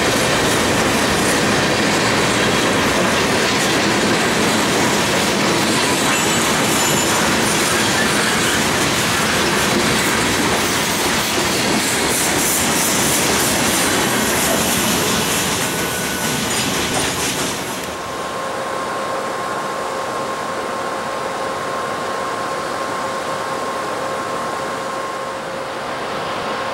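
Freight train of covered hopper cars rolling past close by, a loud steady rush of wheels on rail with a high squeal for a few seconds in the middle. About 18 seconds in it cuts to a quieter, steady drone of diesel locomotives approaching from a distance, with a faint steady tone over it.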